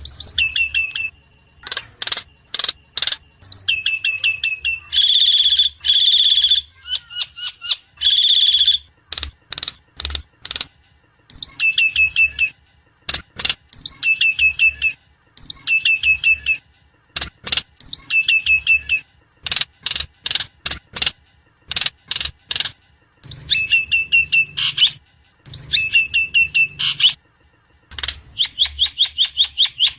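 Recorded Javan myna (jalak kebo) calls: sharp clicks and rapid strings of falling chattering notes, repeated in short phrases with brief pauses, plus harsh, buzzy calls about five to nine seconds in. This is the kind of recording played to a caged myna to prompt it to sing.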